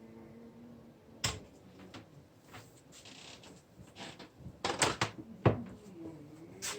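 Handling noise of scattered knocks and clicks: a sharp knock about a second in, a cluster of clatters around five seconds in followed by a heavier thump, and another click near the end.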